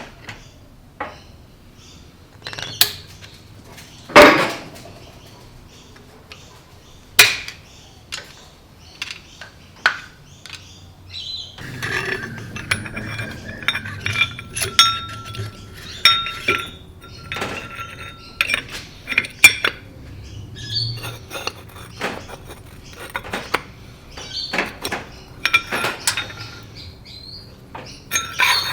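Metal turbocharger parts and hand tools clinking and knocking as the turbo is worked on: a run of sharp clicks and taps, with two louder knocks about four and seven seconds in. A high tone starts and stops several times about halfway through.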